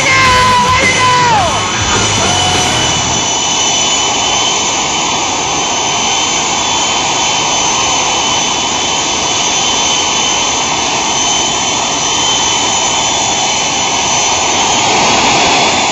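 Kent Shockley's three-jet-engine truck running steadily: a constant jet roar with a high, even whine. Music fades out in the first two seconds or so.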